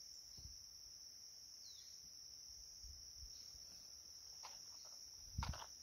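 Steady high-pitched drone of insects in the surrounding vegetation, one unbroken note. Faint low footfalls underneath, with one louder knock about five and a half seconds in.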